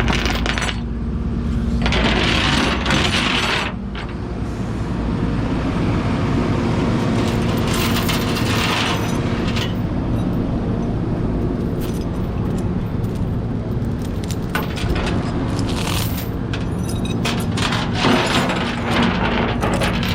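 A red Lincoln's engine running with a knocking noise, a steady low drone with metallic clicks among it.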